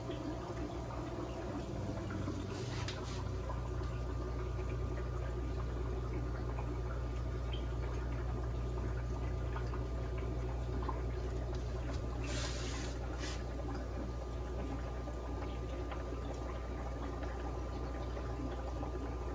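Aquarium water bubbling and trickling from the tanks' filtration over a steady low hum. Brief louder splashing sounds about three seconds in and again around twelve to thirteen seconds.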